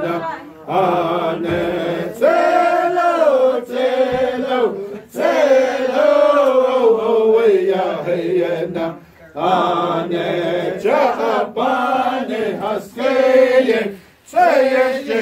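Group of men singing a Navajo shoe game (keshjee) song in unison, a chanted melody in long phrases with short breaks for breath.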